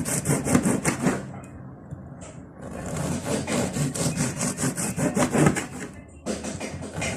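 A knife sawing through a crusty loaf of whole grain bread in quick back-and-forth strokes, a rasping crunch of crust. The strokes stop for about a second and a half about a second in, then resume, with another short break near the end.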